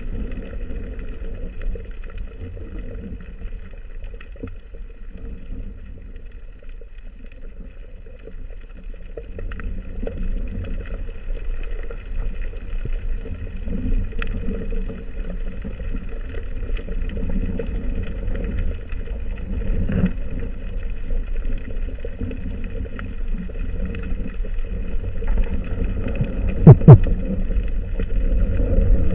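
Muffled underwater sound picked up through a camera housing: a steady low rumble of moving water with faint scattered clicks. A sharp, loud double knock comes near the end.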